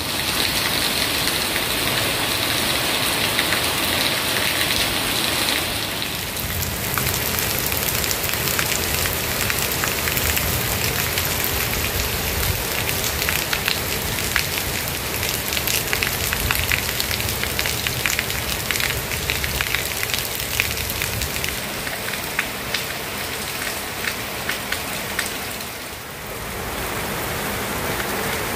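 Rain falling steadily on surfaces, with many separate drops ticking. The sound shifts about six seconds in and again near the end.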